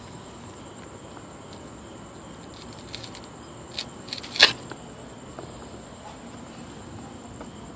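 Crickets trilling steadily at a high pitch in night-time ambience. A few short clicks or scrapes sound about halfway through, one of them much louder than the rest.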